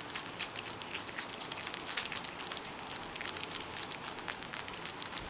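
Pet rabbit chewing leafy salad greens: a rapid, irregular crunching.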